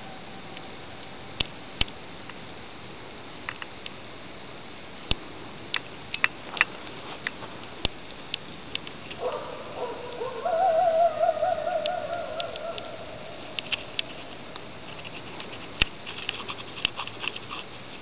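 Coyote howling: one long wavering howl about halfway through, rising at the start and trailing off, over a steady chorus of crickets, with scattered sharp clicks.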